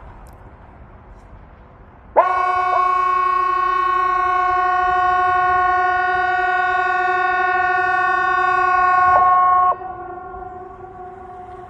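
Hesa Fredrik civil-defence warning siren sounding its test signal: one loud, steady, single-pitched blast starts abruptly about two seconds in and holds for about seven seconds before cutting off sharply. A fainter tone at the same pitch lingers after the blast.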